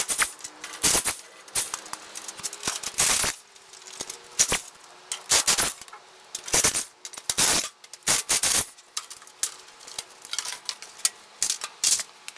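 Irregular sharp metallic clinks and clatters of hand tools and loose metal parts during a tractor fan-belt change.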